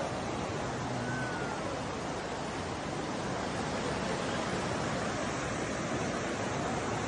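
Steady rushing of floodwater, with a faint distant voice briefly about a second in.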